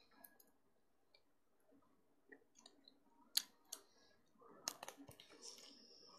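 Mostly near silence, with a few faint wet mouth clicks and smacks of a large wad of bubble gum being chewed close to the microphone: two sharp ones about three and a half seconds in, then a short cluster around five seconds.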